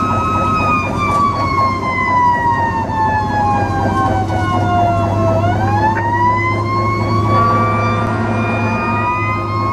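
Fire truck siren, its wail falling slowly in pitch for about five seconds, then rising again, over the steady rumble of the truck's engine, heard from inside the moving truck.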